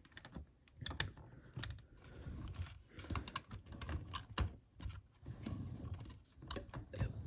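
Irregular light clicks and taps of small plastic parts, the sound of hands handling model train cars and a coupler.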